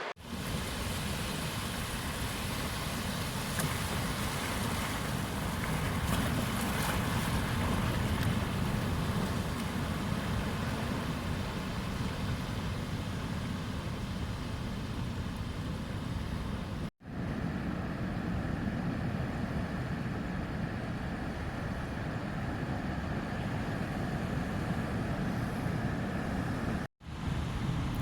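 Steady sea surf with a heavy low rumble. The sound cuts out abruptly for an instant about two-thirds of the way through and again near the end.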